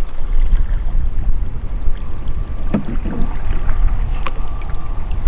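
A kayak out on open water: a strong, gusting low rumble of wind on the microphone over water sounds around the hull, with a knock near the middle and a sharp click a little later.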